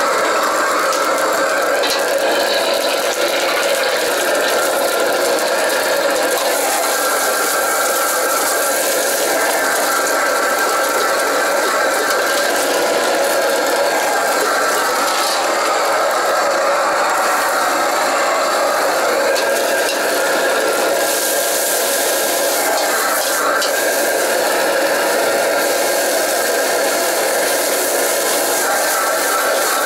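Stir-frying in a wok on a gas wok range: a steel ladle scrapes and clanks against the wok as egg and rice are tossed. Under it runs the steady rush of the burner and the kitchen extraction, which goes on without a break.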